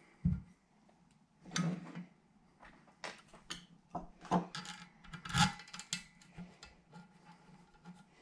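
Hands starting small mounting bolts on a magneto stator coil and handling small parts: scattered light clicks and taps, the loudest about five and a half seconds in. A faint steady low hum lies under them.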